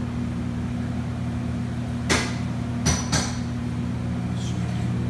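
Steady low electrical hum of running refrigeration equipment, with three sharp knocks: one about two seconds in, then two close together about a second later.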